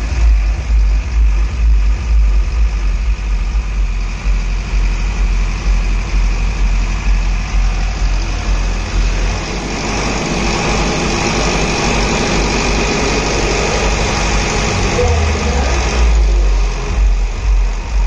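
50 kVA diesel generator set running, with a deep, unevenly pulsing low rumble. From about ten seconds in, a louder, smoother rushing noise joins for around six seconds, then eases off.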